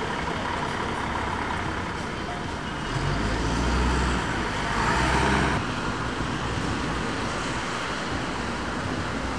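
Busy city road traffic: double-decker buses and cars passing. A louder stretch of engine and tyre rumble swells from about three seconds in and drops back shortly before six seconds.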